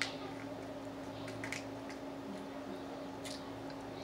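Faint clicks and squishy eating sounds from hands picking at boiled crab legs and shells, over a steady low hum.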